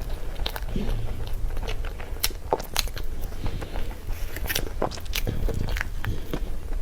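Close-miked eating sounds of cream cake: soft chewing with frequent irregular wet mouth clicks and smacks, over a steady low hum.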